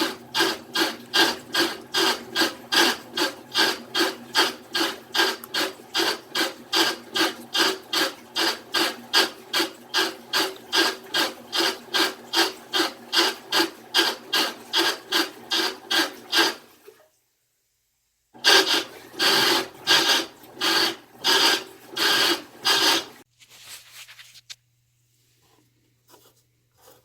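Amana washing machine grinding, with an even rasp about two to three times a second. This is the grinding that was traced to a loose nut at the bottom of the machine. It breaks off partway through, comes back for a few seconds, then stops, leaving a faint low hum.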